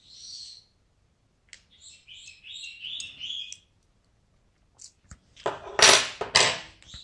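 Pet birds chirping: one short high chirp at the start, then a quick run of short notes. About five and a half seconds in comes a louder noisy burst lasting about a second and a half.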